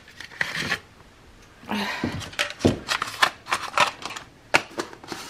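Black plastic disposable cup lids clicking and clattering as they are gathered up off a tile floor and handled on a countertop: a quick, uneven string of sharp plastic clicks.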